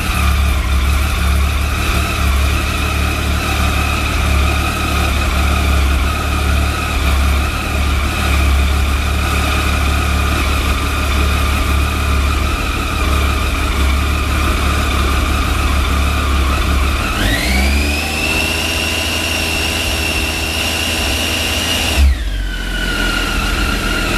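Triumph Tiger 800XC's 800 cc inline three-cylinder engine idling just after starting. About 17 seconds in, the revs rise smoothly to about 2,000 RPM and hold there for some five seconds. They then fall back to idle with a short click, about 22 seconds in. The rev-up is for checking the battery's charging voltage.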